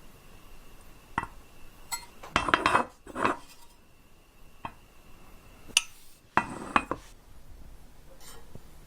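Sharp clinks of hard objects knocking together, with a few short scraping rasps. The loudest stretches come about two and a half seconds in and again just after six seconds.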